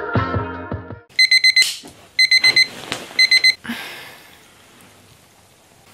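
Electronic wake-up alarm beeping: three quick bursts of rapid high-pitched beeps, about a second apart.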